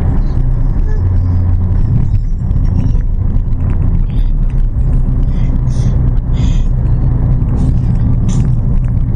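Car engine and automatic transmission droning steadily while driving: a loud, low, even hum, with short hissy sounds above it several times.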